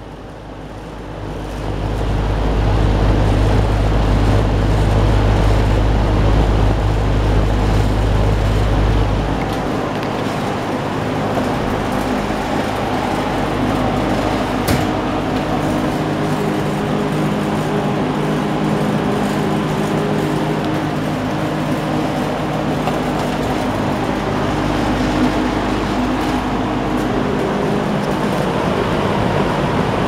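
Windsor box fan running, a steady rush of air with a low motor hum. For the first several seconds its airflow buffets the microphone with a heavy low rumble.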